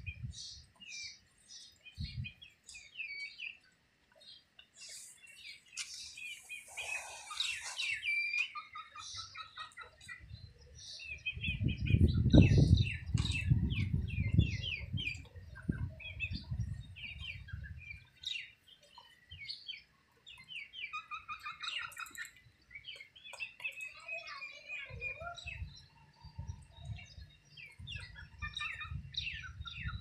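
Young Aseel chicks peeping in quick, high, short chirps as they peck feed. Near the middle there is a louder stretch of wing flapping and scuffling as two of them spar.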